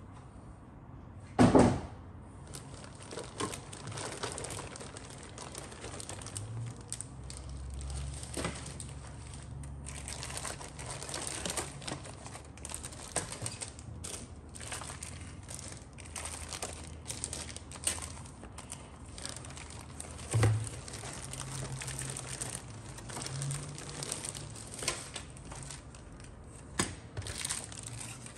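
Clear plastic bags of plastic model-kit sprues crinkling and crackling as they are handled and shifted in a cardboard kit box. There are two louder thumps, one about a second and a half in and one about twenty seconds in.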